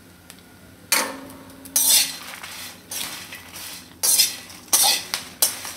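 Metal spatula scraping and stirring dried red chillies, bay leaves and whole spices in a metal wok while they roast. The strokes start about a second in and come roughly once a second, each a short scrape against the pan.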